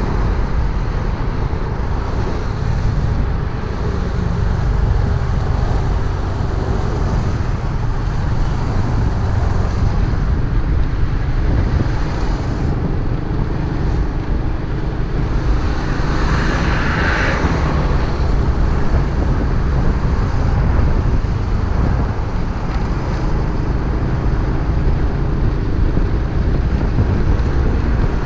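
A freshly overhauled motorcycle on the move, its engine running under heavy wind noise on the microphone, with road traffic around it. A brief louder hiss about two-thirds of the way through.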